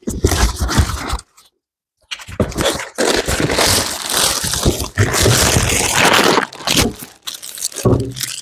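A cardboard box being opened and unpacked: flaps and packing scraping and rustling, with a few dull knocks. The sound cuts out for about half a second, then the dense rustling goes on for several seconds.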